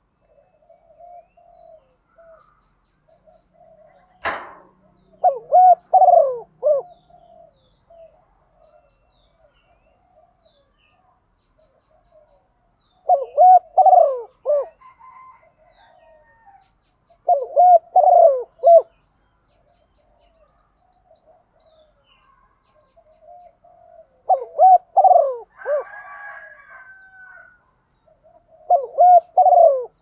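Spotted dove cooing, five loud phrases of several notes each, with soft low coos in between. A single sharp knock about four seconds in.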